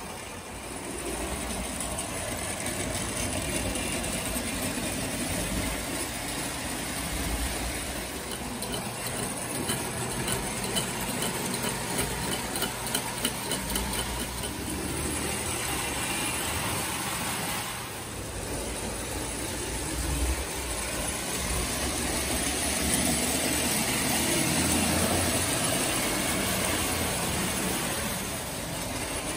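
1929 Lionel standard gauge coal train running on tinplate track: a steady whirring of its electric motor and gears with wheels clattering on the rails. It is loudest about three-quarters of the way through, as the train passes close.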